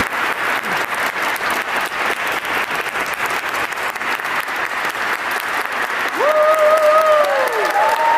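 Audience applauding after the music stops, with many close-packed claps. About six seconds in it grows louder and a few long whooping cheers rise, hold and fall over the clapping.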